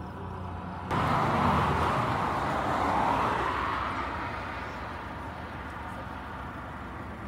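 A loud rushing noise of a passing vehicle cuts in about a second in, swells again, then fades away over the next few seconds.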